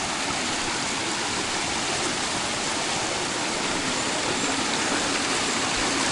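River water rushing over rocks, a steady unbroken hiss that grows slightly louder toward the end.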